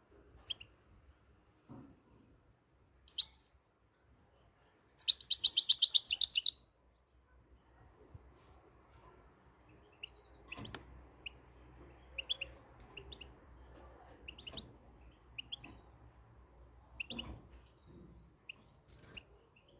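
Moroccan goldfinch singing: a short high call, then a loud, rapid trill of about a second and a half, followed by scattered short chirps.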